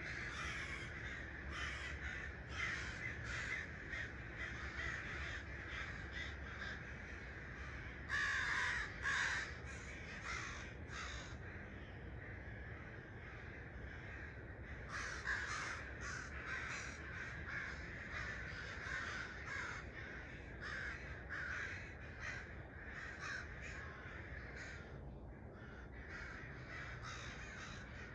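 Birds calling at daybreak, many short repeated calls one after another, with louder bursts about eight seconds in and again around fifteen seconds in, over a faint steady low rumble.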